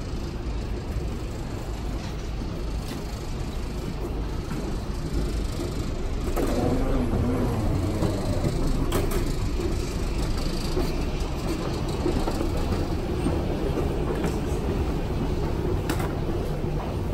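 Escalators running in an underground rail station: a steady low rumble that grows louder about six seconds in as the escalator is reached, with a few short clicks.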